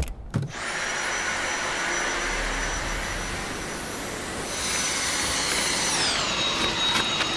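Cordless stick vacuum cleaner's motor running with a steady rushing hiss and a high whine; about six seconds in, the whine slides down to a lower pitch as the motor slows. A couple of clicks sound just as it starts.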